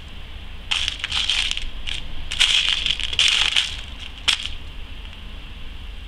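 Loose beads rattling and clicking in a plastic tub as fingers stir through them and pick them up onto memory wire. The rattling comes in two bursts, about a second in and again from about two and a half to three and a half seconds, with one sharp click just after four seconds.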